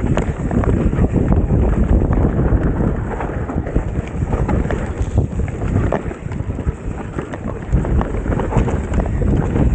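Mountain bike riding fast down a dirt forest singletrack, recorded on a helmet-mounted action camera: wind buffets the microphone in a constant low rumble, over which the bike rattles and knocks on the bumps of the trail.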